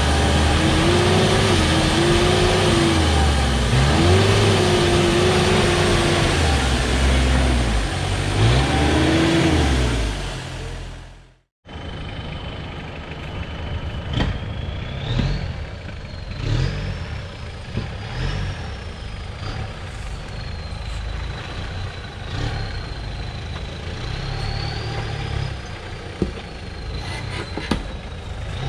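4WD vehicle engine revving up and down several times under load. After a sudden cut, a quieter engine runs with a thin high-pitched whine that wavers in pitch, and a few scattered knocks.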